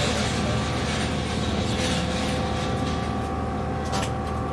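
MV Queen of Cumberland ferry's engines running steadily while the ship sits at its berth: a continuous low hum with a few thin steady tones over it.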